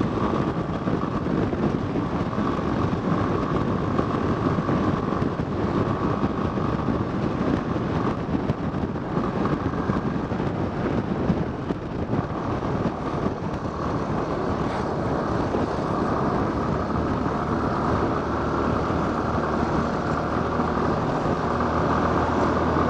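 Yamaha Fazer 250's single-cylinder engine running steadily at highway cruising speed, under a constant rush of wind and road noise. The engine note stands out more in the last several seconds as a truck is passed.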